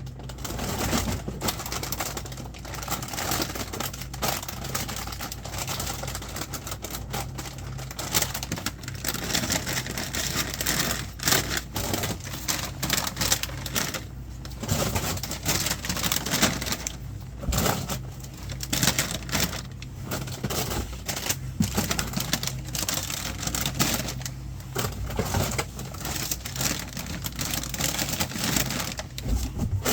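Convenience-store stock being unpacked and shelved: a busy, irregular run of clicks, knocks and rustles from packages and boxes being handled, over a steady low hum.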